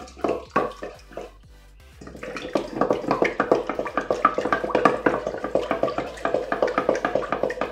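Wooden spatula stirring yeast and water in a stainless steel bowl: quick, repeated liquid splashing and scraping strokes against the metal, growing busier about two seconds in.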